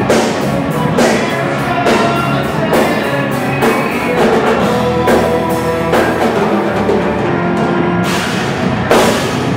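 Live progressive metal band playing with full drum kit, guitars, bass and keyboards: sustained chords with heavy drum and cymbal hits landing about once a second.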